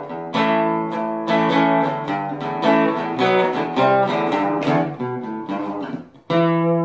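Acoustic guitar music, picked and strummed notes in a steady run. Near the end it breaks off briefly, then one final chord is struck and left ringing.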